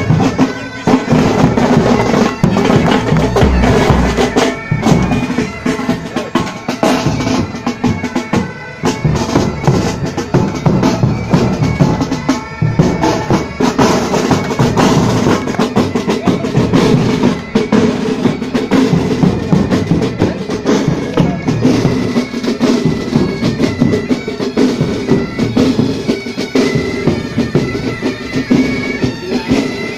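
Pipe band playing: bagpipes with dense, fast snare drumming and drums beneath.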